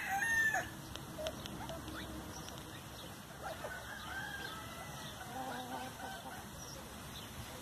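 Chickens clucking and calling, with a rooster's crow cutting off about half a second in, followed by scattered short clucks.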